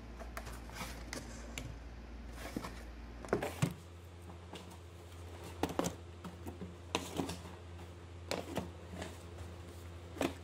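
Cardboard boxes being lifted out, handled and set down on a stack: a string of dull knocks and scrapes, the loudest a little over three seconds in, over a low steady hum.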